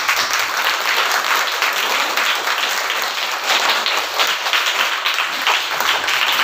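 A class of schoolchildren applauding: many small hands clapping in a dense, steady patter.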